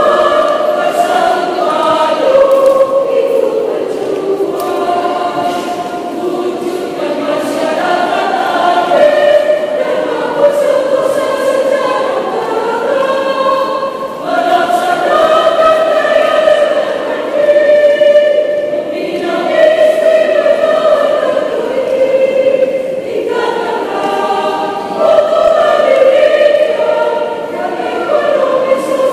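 Women's choir singing, with long held notes and short breaks between phrases.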